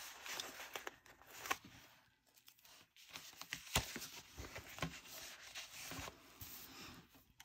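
Faint papery crackling and light rustling, sticker paper peeled from its backing and pressed onto a paper planner page, with a few small ticks.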